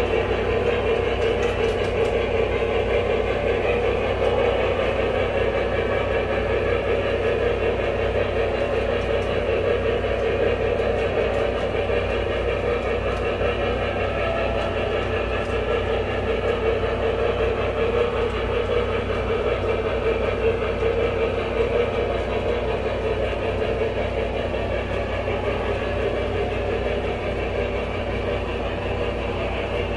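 Onboard sound system of a Lionel Vision Line Challenger O scale locomotive, giving a steady, unbroken mechanical running rumble with a constant hum.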